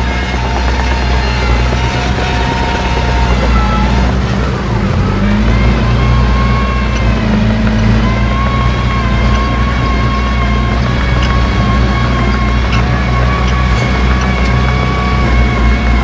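Diesel engine of heavy earthmoving machinery running steadily under load. Its pitch dips about four seconds in, then picks back up.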